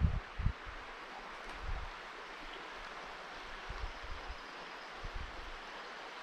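Wind buffeting the microphone in uneven low thumps, over a steady rushing hiss. The thumps are heaviest at the start and come back now and then.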